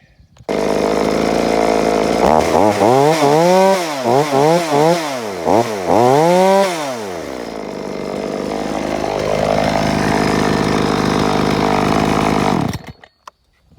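Chainsaw running with its freshly fitted new chain, whose drive links were ground down to fit the bar. The throttle is blipped up and down several times, then the saw runs more steadily before stopping abruptly near the end.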